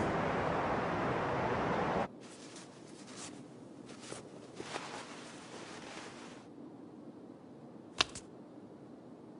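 A steady rush of noise cuts off abruptly about two seconds in. Then comes a quiet stretch with a few soft, scattered clicks, and one sharp click about eight seconds in.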